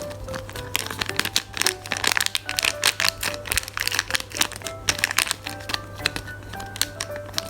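Plastic packaging crinkling in dense, rapid crackles as a parcel of squishy toys is handled, over background music with a simple plinking melody.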